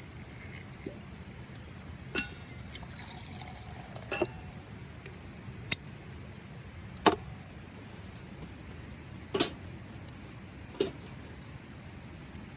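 A handful of sharp, separate clicks and clinks, about six in twelve seconds and irregularly spaced, over a steady low background rumble.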